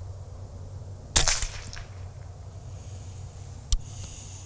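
Air Arms S510 Tactical .25 FAC air rifle firing once about a second in: a sharp crack with a short ringing tail. A shorter, sharp click follows near the end.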